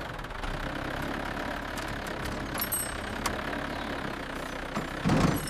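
Excavator engine running steadily, with a few faint clicks and a short louder swell near the end.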